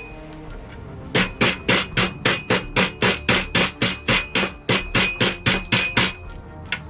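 Rubber mallet tapping a punch in a quick, even series of about twenty strikes, roughly four a second, each with a short metallic ring. The punch is driving out a stiff retaining pin from the front sight base of an airsoft M4.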